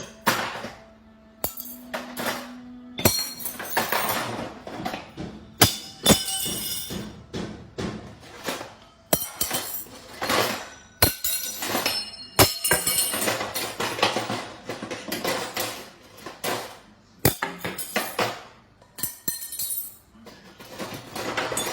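Music with frequent sharp clattering and clinking impacts, like hard objects knocking and breaking.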